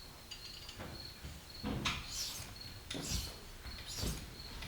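A KME sharpener's diamond stone drawn across the edge of a single-bevel steel broadhead in a few short scraping strokes, about one a second, starting about a second and a half in.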